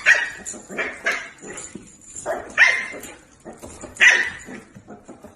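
Dog barking: a string of short, sharp barks, the loudest three at the start, about two and a half seconds in and about four seconds in, with softer barks between them.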